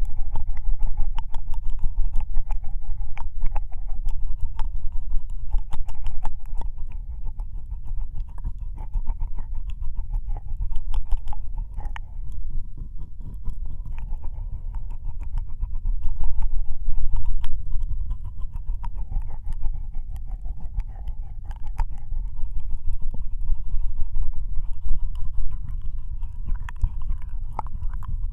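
Wet ear-licking mouth sounds made right against a binaural microphone's ear: a dense, continuous run of small slurping and smacking clicks over a low rumble, a little louder about halfway through.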